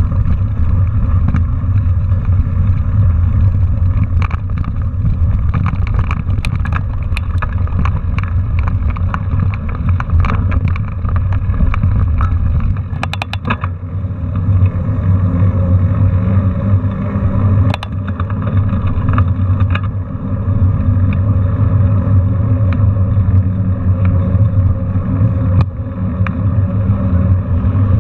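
Wind buffeting a handlebar-mounted action camera on a mountain bike in motion, with a steady low rumble from the tyres and ride. In the first half, on the dirt road, the bike rattles and clicks sharply and often; about halfway through, on asphalt, the rumble turns smoother with fewer clicks.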